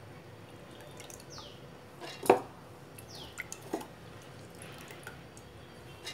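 Soaked urad dal being scooped by hand out of a bowl of water into a stainless steel mixer-grinder jar: water dripping and splashing off the hand. There is a sharp clink against the steel jar about two seconds in, and two lighter knocks soon after.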